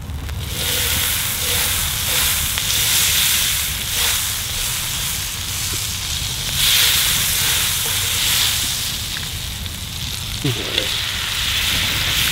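Butter sizzling as it melts and foams in a hot frying pan over a campfire, with a lump of it pushed around the pan. The sizzle starts about half a second in and carries on steadily.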